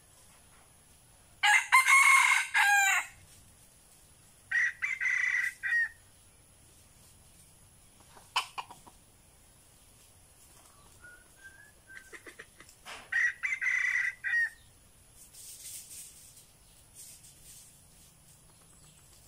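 Rooster crowing three times, the first crow the loudest and longest, with a few sharp clicks between the crows.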